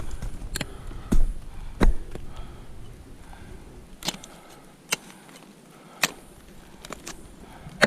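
Ice axes and crampons biting into waterfall ice: about eight sharp strikes at uneven intervals, the loudest in the first two seconds.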